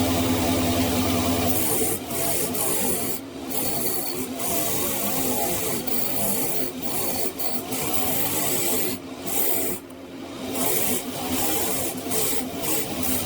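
Steady abrasive rubbing on metal, as in sanding or scrubbing gun parts, with a few short breaks: about three seconds in and again around nine to ten seconds.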